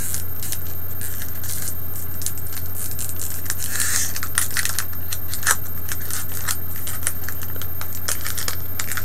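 Foil Pokémon booster pack wrapper crinkling and crackling as it is worked and torn open by hand, many sharp irregular crackles and clicks, over a steady low hum.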